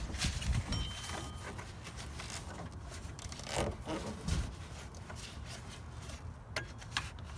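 Irregular rubbing and scraping as a rubber serpentine belt is worked by hand through a tight gap in the engine bay, with two light knocks near the end.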